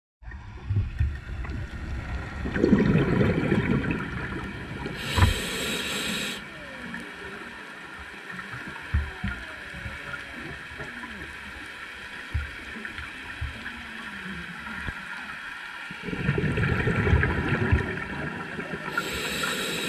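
Scuba diver breathing through an open-circuit regulator underwater: twice, a low bubbling rumble of exhaled air is followed a little later by a short hiss of inhalation through the regulator.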